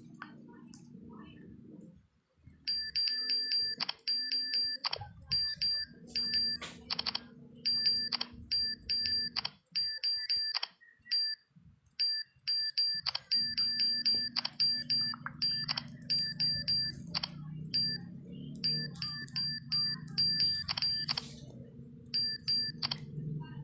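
Facemoji phone keyboard's keypress sound: a short, high, chime-like beep for each key tapped while typing, several a second, starting about three seconds in with a brief pause midway. A low steady hum runs underneath.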